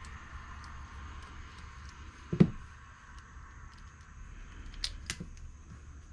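Handling and disassembly of a small chainsaw carburetor: faint ticks, one solid knock about two and a half seconds in, then two sharp clicks near the five-second mark, like tools and small carburetor parts being set down and pried apart.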